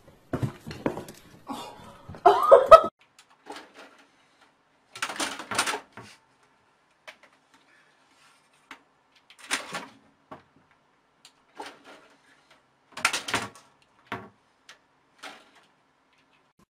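A cat playing: a cluster of knocks and scuffles in the first few seconds, loudest just before three seconds in, then short scratching, rattling bursts a few seconds apart as a cat claws and paws at the side of a plastic computer tower.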